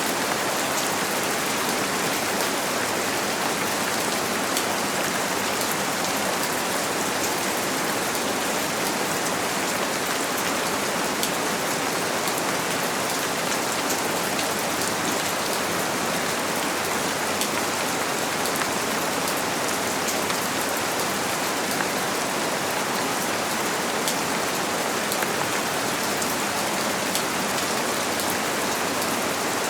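Steady rain falling on a window: an even, unchanging hiss with faint scattered drop ticks.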